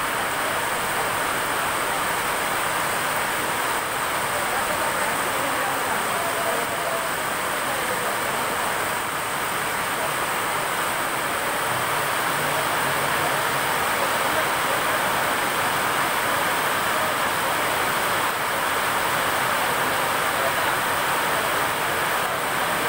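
Heavy rain pouring down steadily onto a concrete platform and track ballast, a dense even hiss that does not change.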